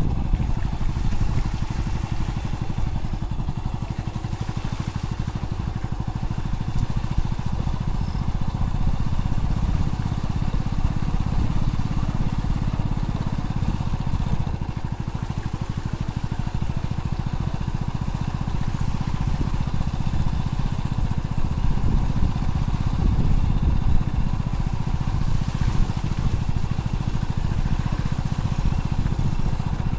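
Motorcycle engine running steadily at low riding speed, a continuous low engine note with small rises and falls, heard from the rider's seat.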